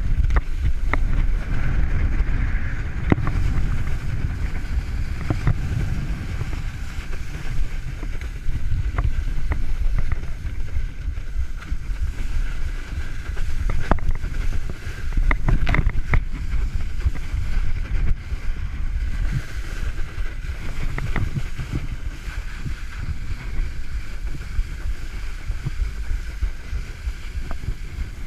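Wakeboard skimming across lake water under cable tow, a steady rush of spray with heavy wind buffeting on the microphone and scattered sharp taps.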